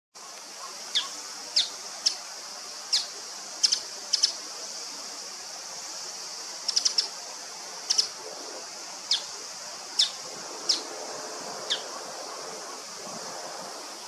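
Male bull-headed shrike calling: about a dozen short, sharp, high-pitched calls at irregular intervals, some in quick doubles or triples, over a steady hiss.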